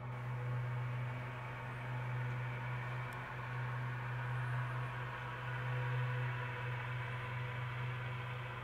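A steady low hum with an even hiss over it, and a few faint high chirps now and then.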